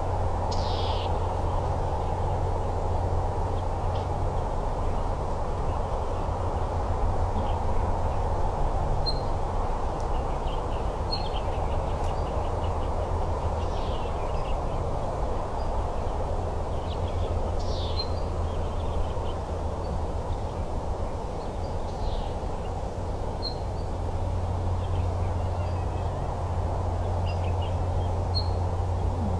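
Steady wind noise on the microphone in open desert, with several short bird calls scattered through it, some falling in pitch and some brief high chirps.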